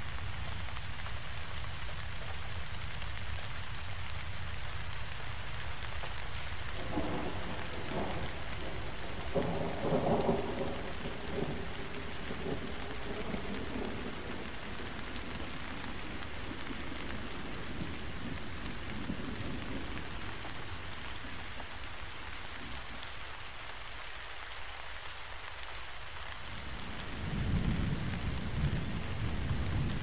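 Steady rainfall, with low rolls of thunder swelling twice: a long one starting about a quarter of the way in and another near the end.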